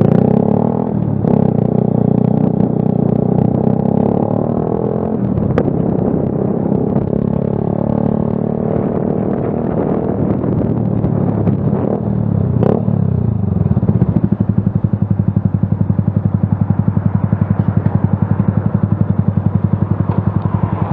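Motorcycle engine running while riding, its pitch rising and falling with the throttle. About two-thirds of the way through it settles into a steady idle with an even pulsing beat.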